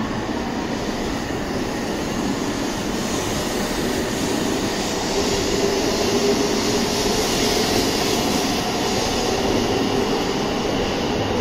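Shinkansen train moving slowly along the platform, a steady rush of running noise that swells a little midway.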